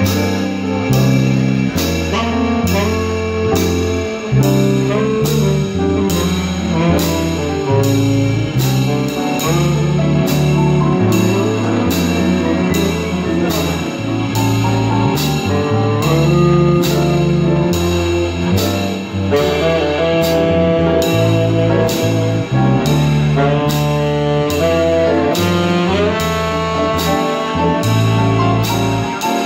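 Live jazz combo: saxophone playing a melodic line over plucked upright bass notes that move every half second or so, with piano and a cymbal ticking about twice a second keeping time.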